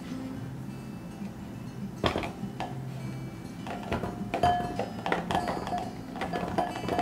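Firm green plums tumbling from a plastic colander into a glass mixing bowl on a kitchen scale: a quick run of knocks with the glass bowl ringing, starting about four seconds in. A single sharp knock comes about two seconds in as the colander is picked up. Soft background music plays underneath.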